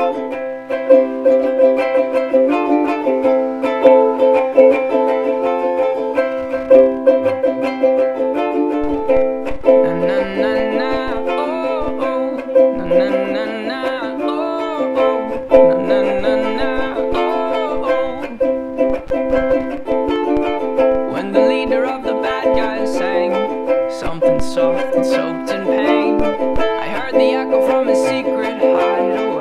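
Sapele-bodied soprano ukulele strummed in steady chords as a song accompaniment. From about nine seconds in, a sung a cappella vocal line joins it.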